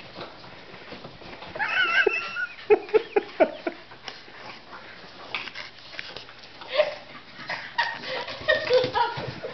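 Small pet dogs whining and yipping in excitement as they greet their owner: a high wavering whine about two seconds in, a quick run of short yips just after, and more short cries near the end.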